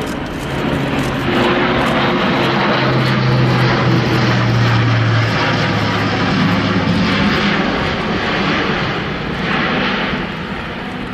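Airbus A400M's four TP400-D6 turboprops and eight-bladed propellers passing low in a loud, deep drone. The drone swells over the first two seconds, drops in pitch about five seconds in as the aircraft goes by, and then slowly fades.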